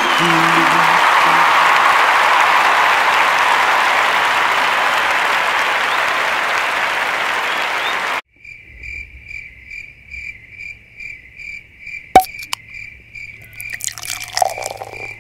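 Applause that slowly fades and cuts off about eight seconds in, followed by crickets chirping, a steady high chirp about twice a second over a low hum.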